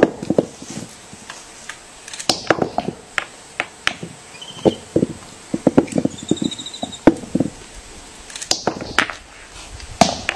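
Irregular sharp knocks of a hammer stone striking a stone anvil, several to a second in places, with a pause of about a second near the start and another about 8 s in. Two short high chirps fall between the knocks, about 4 and 6.5 s in.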